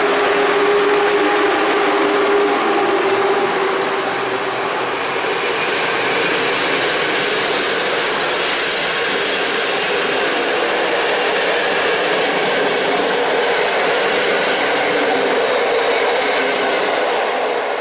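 EP07 electric locomotive pulling a train of passenger coaches away from a station: a steady hum from the locomotive as it passes in the first few seconds, then the coaches rolling past, their wheels running on the rails.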